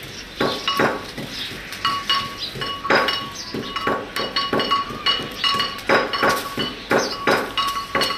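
Repeated sharp metallic clinks and knocks, roughly two a second, several of them leaving a short ringing tone.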